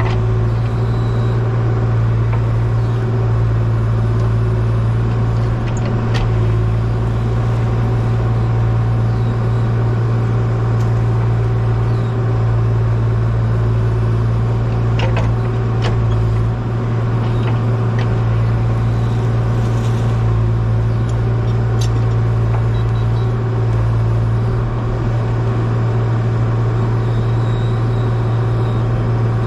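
A heavy machine's engine running steadily at one speed, with a few brief clicks or knocks over it.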